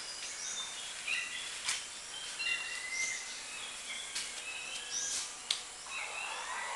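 Birds chirping: many short, high chirps scattered through, over low background noise, with a few faint sharp clicks.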